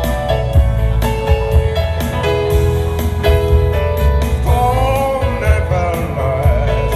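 Live band accompaniment of a slow ballad, with held keyboard notes over a steady bass and drum beat. A man's singing voice comes in about four and a half seconds in.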